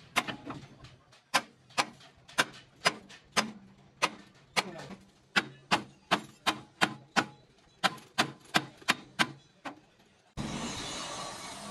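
Sledgehammer striking a steel bracket on a truck chassis frame: about twenty sharp metallic blows with a ringing tail, at an uneven pace of roughly two a second with short pauses. Near the end the blows stop and a steady noise begins abruptly.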